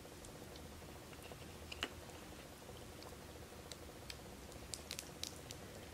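Faint clicks and crackles of fingers picking through and pulling apart boiled seafood, with one sharper click about two seconds in and a cluster of small clicks near the end.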